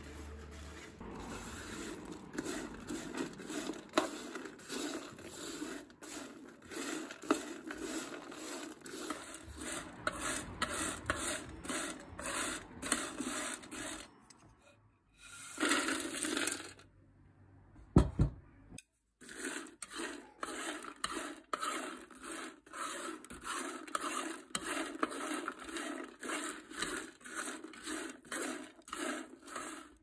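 Wooden spoon scraping and stirring dried tea ingredients across a nonstick electric pan while they are dry-roasted, a rhythmic dry scrape about twice a second. Midway there is a louder rush of dried shiitake slices being tipped and turned on the pan, then a single sharp knock.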